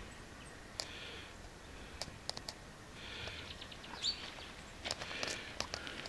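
Quiet garden ambience with faint bird chirps and a scattering of light clicks and taps.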